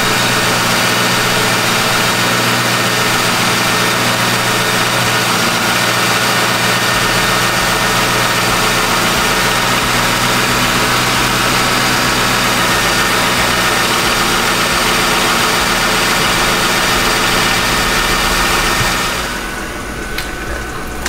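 A 2007 Lincoln Town Car's V8 engine idling steadily, heard from underneath the car. It runs so the power steering system is pressurised while the newly replaced pressure switch is checked, and the switch does not leak. The sound drops quieter shortly before the end.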